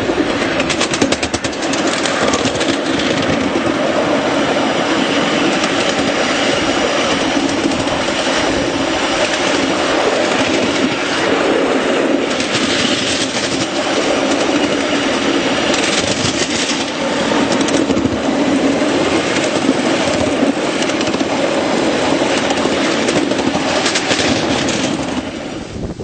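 Miniature railway train running along its small-gauge track, heard from on board: a steady rumbling ride with several spells of rapid clicking and clattering from the wheels over rail joints.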